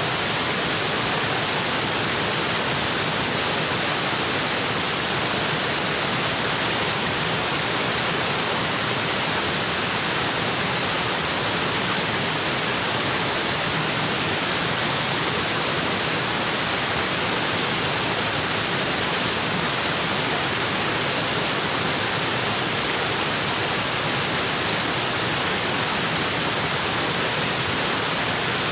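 Waterfall: water falling onto rocks in a steady, dense rush, unchanging throughout.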